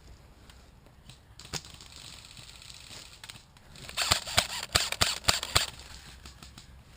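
Airsoft gun shots: a single shot, then a quick string of about six or seven shots, roughly three to four a second, a few seconds later.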